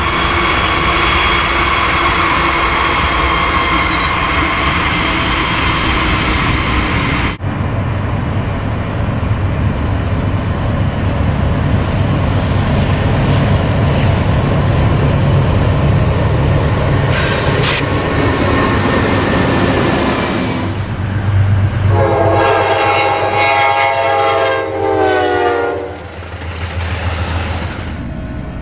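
Approaching train locomotives rumbling steadily, with a sudden break in the sound about seven seconds in. About three quarters of the way through comes a long horn blast of several notes together that slides slightly down in pitch and stops a couple of seconds before the end.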